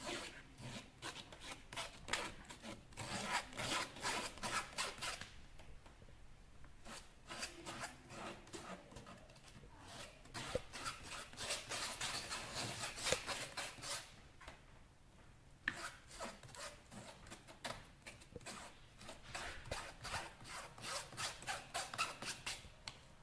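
Metal spatula scraping soft porcelain clay through a wire-mesh sieve: quick rasping strokes in runs, pausing briefly twice. The clay is being sieved to take out any lumps.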